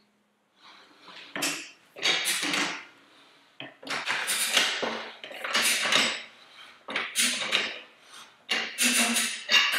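A Rabaconda manual motorcycle tire changer being worked by hand: its long bar and duck head are levered round the rim, working the tire bead over the rim edge. The sound is a run of short scrapes and clanks, about two a second.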